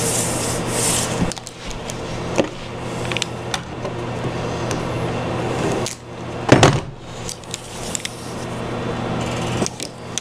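Hands rubbing and handling double-sided carpet tape on a wooden tabletop, with scraping, rustling and a few clicks. There is one louder scuff about six and a half seconds in, and a steady low hum underneath.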